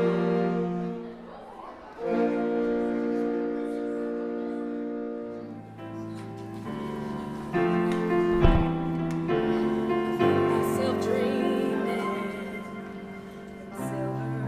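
Saxophone quartet holding the slow final chords of a ballad, closing on a low baritone-sax note. Then a Yamaha electronic keyboard plays a slow piano-style ballad introduction, with a single thump shortly after it starts.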